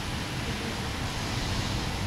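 Steady rain and wind of a thunderstorm: an even hiss with a low rumble underneath.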